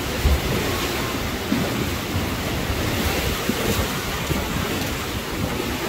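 A steady rushing noise, with scattered low thumps on the microphone.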